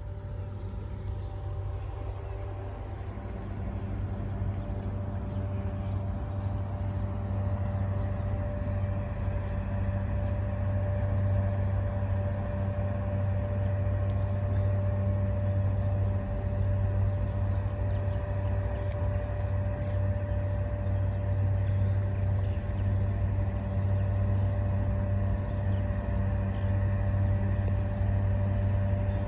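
River towboat's diesel engines pushing a tow of loaded coal barges: a steady low drone with a humming tone above it. It grows louder over the first several seconds as the boat comes closer, then holds steady.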